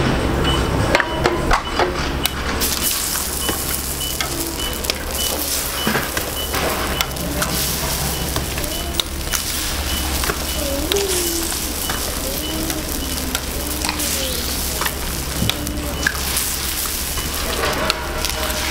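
Eggs and batter frying on a hot flat-top griddle: steady sizzling that grows louder about three seconds in, with scattered sharp taps and clicks as eggs are cracked onto it.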